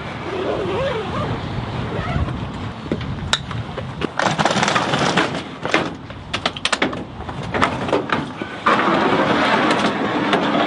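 Metal wheeled stretcher rattling, clicking and knocking as it is lifted and pushed into the back of a van, with a run of sharp clicks in the second half.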